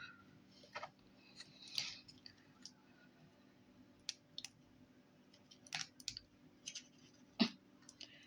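Scattered light clicks and scratches of plastic Play-Doh set pieces being handled, a dozen or so separate taps, the loudest about seven seconds in.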